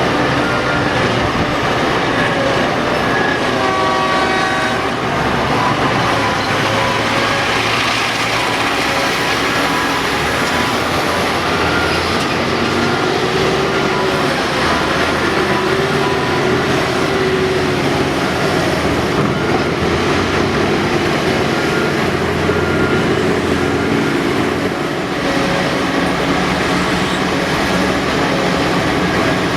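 Large diesel earthmoving machinery working under load: a Caterpillar 5130B excavator's engine and hydraulics while it loads haul trucks, the engine note rising and falling.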